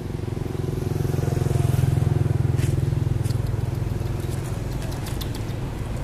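A motor vehicle engine hums low as it passes, swelling to its loudest about two seconds in and then slowly fading. A few faint high clicks come near the middle and again toward the end.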